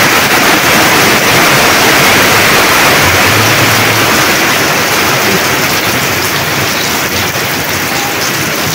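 Heavy downpour, a dense steady rush of rain on corrugated tin roofs and flooded ground, easing a little over the last few seconds.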